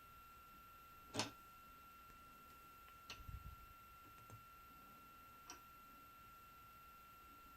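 Quiet room with a faint steady high whine, broken by a few light clicks of small tools being handled on the bench, the sharpest about a second in.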